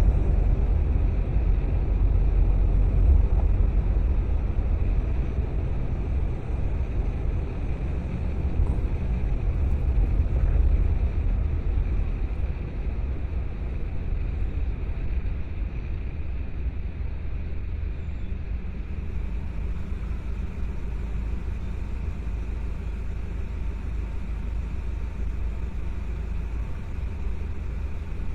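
Car on the move: a steady low rumble of engine and tyre noise, a little quieter after about twelve seconds.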